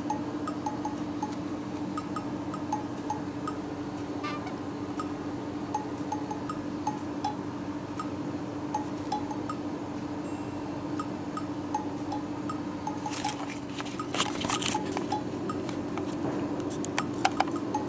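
Small bell on a cat's collar jingling in a few short clusters of clinks, about three-quarters of the way through and again near the end, over a steady low hum with faint, quick, even ticking.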